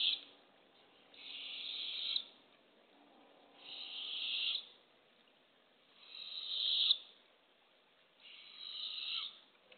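Barred owl owlet begging with raspy hissing screeches for food: four drawn-out hisses about a second long, each swelling louder before cutting off, repeating every two seconds or so.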